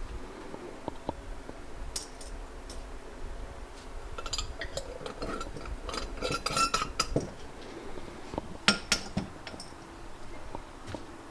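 Small pieces of scrap metal clinking and rattling as they are handled and dropped into a container, with a busy run of clinks in the middle and two sharp loud clinks near the end.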